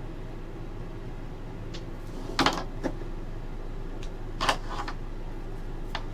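A steady low hum, with two short clacks about two and a half and four and a half seconds in and a few faint ticks.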